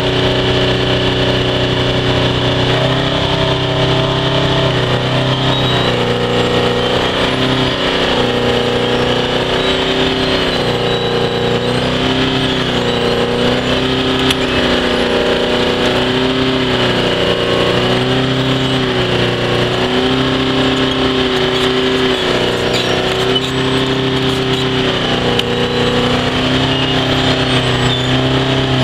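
1977 Koehring 700 wheel trencher's engine running steadily under load while the digging wheel cuts a trench. The engine note rises and falls slightly every couple of seconds as the load on the wheel changes.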